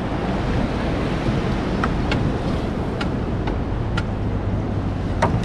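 Steady wind and sea noise on an open boat: wind buffeting the microphone over water lapping at the hull, with a few faint clicks.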